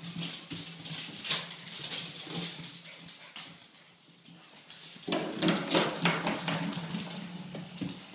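A Yorkshire terrier and white bully-breed dogs playing and scuffling on a laminate floor, their claws clicking and skittering on the hard surface. The scuffling is busiest about five seconds in, after a brief lull.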